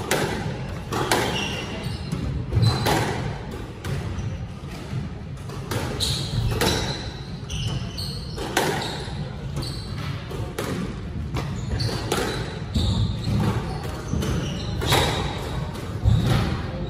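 Squash rally: the ball smacking off rackets and the court walls again and again, about once a second, with short high shoe squeaks on the wooden court floor in between.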